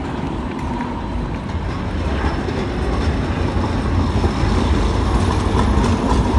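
A moving rail vehicle: a steady low rumble with running noise, growing slightly louder in the second half.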